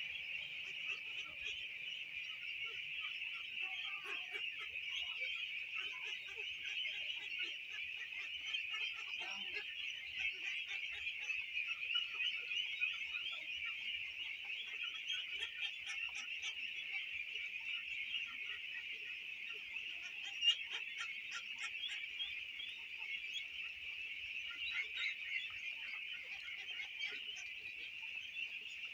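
A huge flock of young domestic ducks (ducklings) peeping and calling all at once in a continuous, dense, high-pitched chatter. One brief sharp sound stands out about two-thirds of the way through.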